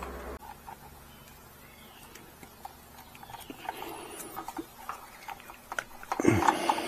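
Scattered small clicks and rustles of hands handling wires, connectors and tools, after a steady hum cuts off about half a second in; near the end, a brief louder sound that falls in pitch.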